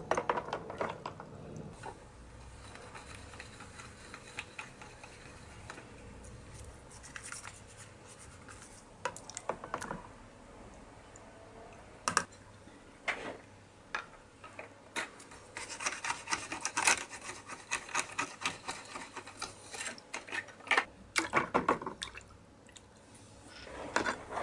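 Small plastic RC car parts being washed by hand in soapy water: irregular splashing and rubbing, with short scratchy bursts of brush scrubbing, busiest in the second half.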